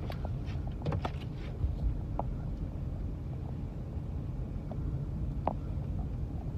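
Steady low rumble of a car driving, heard from inside the cabin, with a few faint clicks about a second in and again near the end.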